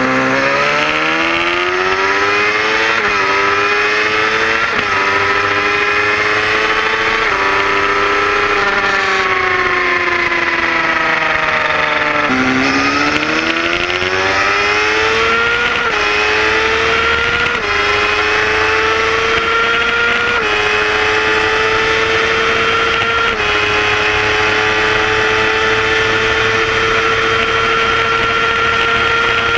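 Kawasaki ZX-6R 636's inline-four engine at full throttle in a roll race, revving up through the gears with a quick dip in pitch at each upshift, over heavy wind noise. About nine seconds in the revs wind down as the throttle is closed. After a break a second run climbs through four more upshifts and holds near the top of the rev range in top gear.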